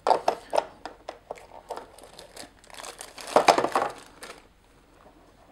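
Plastic packaging crinkling and crackling as a handheld radio is taken out of its plastic bag, a run of irregular rustles and clicks that is loudest about three and a half seconds in and stops about a second before the end.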